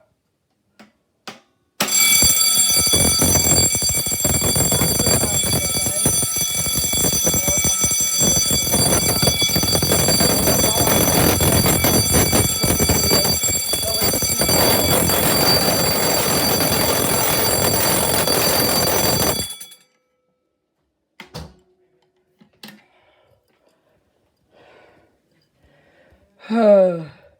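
Electric fire alarm bell ringing continuously, really loud, its hammer striking the gong rapidly; it starts about two seconds in and cuts off suddenly after about seventeen seconds. A few light knocks follow.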